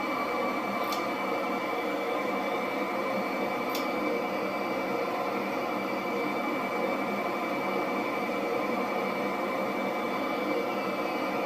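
F-35B jet engine running steadily: a constant high whine over a broad, even rush of noise that neither rises nor falls.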